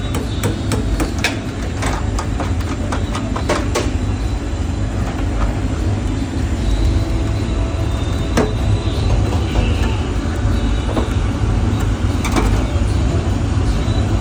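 Scraping and clicking of a hand tool on a commercial induction cooker, as burnt residue is scraped off. The scrapes are thick in the first few seconds and return a few times near the end, over a steady low rumble.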